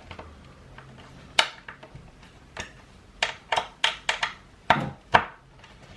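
A series of about eight sharp clicks and knocks, irregularly spaced and coming faster in the second half: hard skateboard parts and hardware being handled and set against one another.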